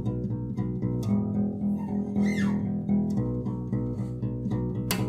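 Tagima AB 400 acoustic bass guitar plucked with the fingers, playing a steady run of repeated low notes.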